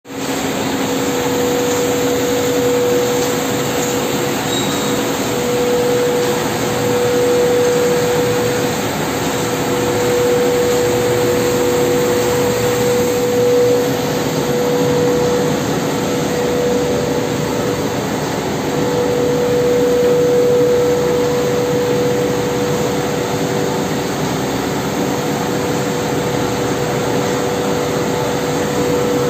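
An 8-colour full-rotary central-impression letterpress running in production, printing laminated tube labels: a steady mechanical whir with a clear, constant hum.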